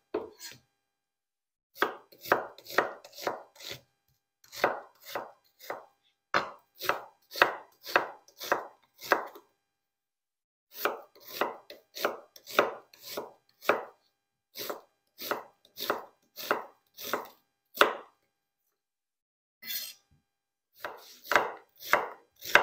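Chef's knife dicing onions on a wooden cutting board: runs of quick knocks, about three a second, with a pause about ten seconds in and another near the end.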